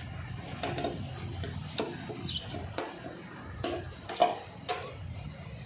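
Plastic RO water purifier cabinet being handled and turned over: a series of light knocks and taps, the loudest about four seconds in.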